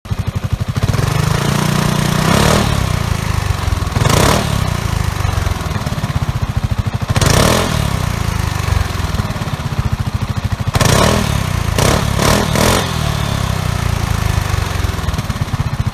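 Kymco Xciting 400i scooter's single-cylinder engine through an MIVV sports exhaust, idling and revved repeatedly in short blips, with three quick blips in a row near the end.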